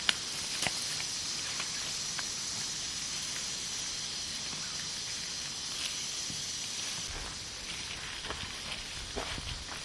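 Outdoor bush ambience: a steady high-pitched hiss with scattered small clicks and ticks, and a low rumble coming in about seven seconds in.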